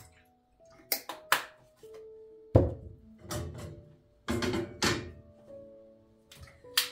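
Kitchen handling knocks over soft background music: a run of thunks and clatters as a milk carton is set down on a wooden countertop and a wooden board is laid on a gas stove's metal grate, the loudest thunk about two and a half seconds in.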